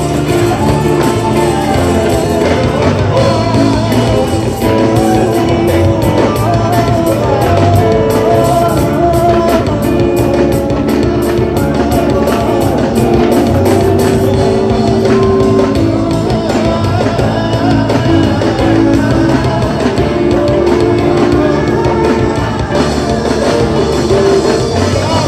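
Live band with a drum kit backing several singers singing the song together into microphones, with held sung notes over a steady beat.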